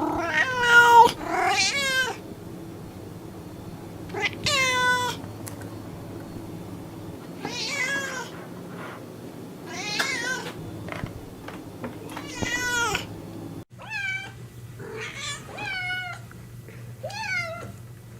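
Cat meowing over and over, about a dozen separate meows with pauses between them, over a steady low hum. About two thirds of the way in the recording cuts abruptly to a run of thinner, quicker meows.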